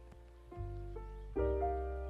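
Background piano music: slow, sustained chords, with a new chord struck about half a second in and a louder one just past the middle.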